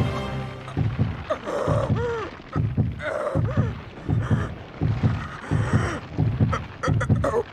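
A young woman's voice groaning and gasping in strain as she turns into a monster, over low throbbing pulses about twice a second.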